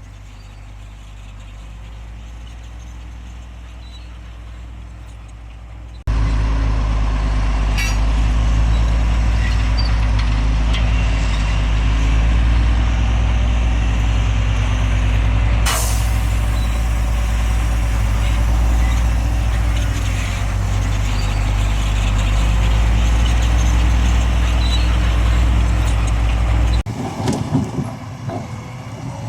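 Heavy construction machine's diesel engine running steadily under load, loud and low, after a quieter stretch of engine hum; the sound jumps abruptly louder about six seconds in and changes again near the end, with a single sharp hiss or click about halfway.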